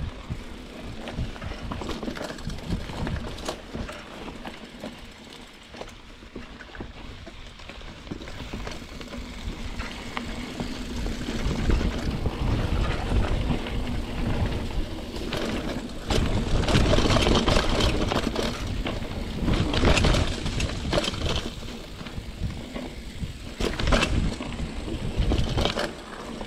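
Trek Marlin 7 hardtail mountain bike ridden over a dirt singletrack: tyres rolling on dirt and leaf litter, with steady rattling and knocking from the chain and frame over bumps. It grows louder and rougher about two-thirds of the way through.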